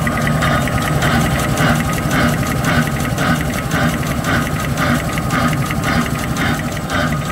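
XY-GU-20A box-drawing facial tissue folding machine running: a steady mechanical hum and whine with a regular clatter about twice a second as its folding section cycles.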